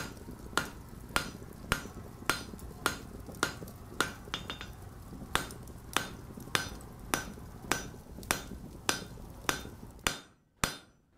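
Blacksmith's hammer striking an anvil in a steady rhythm, a little under two blows a second, each blow ringing brightly, with a pause of about a second just past the middle.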